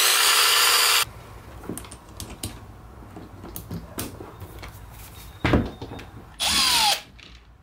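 Cordless drill-driver backing out the grinder's housing screws in two short runs: one over the first second, and a half-second one about six and a half seconds in that ends in a falling whine. Between them come light clicks and a sharp knock as the grinder is handled on a wooden floor.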